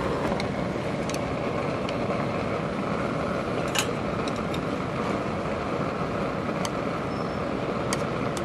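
Steady rush of heavy rain, with the sharp, scattered crackles of a wood campfire popping about once a second.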